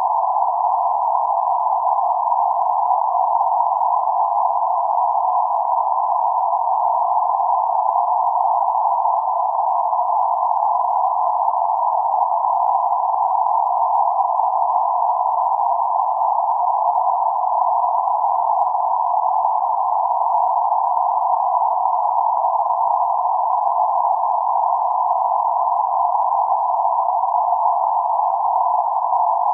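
Steady electronic noise confined to a narrow band centred around 848 Hz: an even midrange hiss, unchanging, with nothing in the lows or highs.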